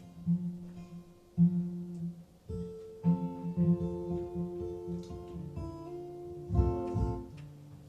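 Acoustic guitar played live: single picked notes and chords, then a louder strummed chord about six and a half seconds in that rings and dies away.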